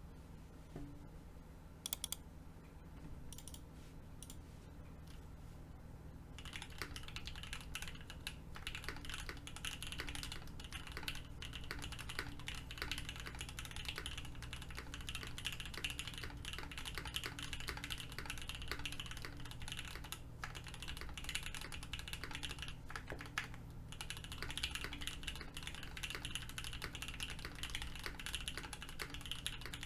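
Typing on a Mode Envoy mechanical keyboard with stock Gateron Oil King linear switches, no foam and hard lattice mounts. A few single keystrokes come in the first seconds, then steady, fast typing starts about six seconds in.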